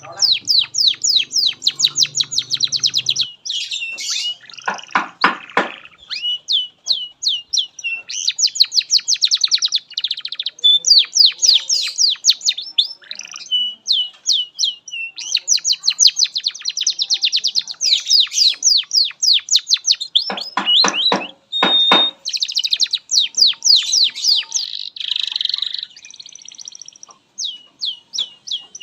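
Domestic canary singing a long, unbroken song of fast trills between high, rapidly repeated phrases. Lower, rolling phrases come about five seconds in and again near twenty seconds, with a short held whistle just after.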